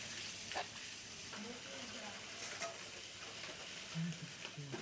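Steady sizzling hiss of a fire hose's fog spray playing on a flaming LPG gas cylinder, a few short low sounds near the end.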